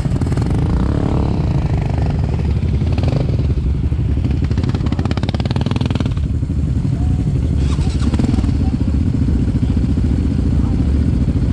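Quad bike (ATV) engines running steadily, heard from on board the rider's own machine as it follows another quad along a dirt trail.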